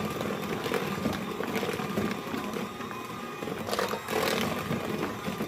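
Electric hand mixer running steadily, its beaters churning thick chocolate brownie batter in a bowl as the cocoa powder is blended in.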